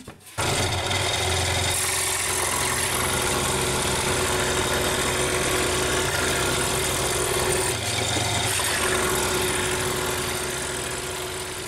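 Peugeot scroll saw running steadily, starts about half a second in, its reciprocating blade cutting a tree outline in 6 mm plywood, with a constant motor hum under the chatter of the blade; the sound fades near the end.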